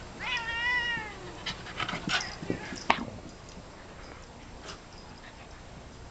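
A Shetland sheepdog gives one high-pitched whine, rising then falling and lasting under a second, while play-fighting with a cat. Scuffling and a few short knocks follow over the next couple of seconds.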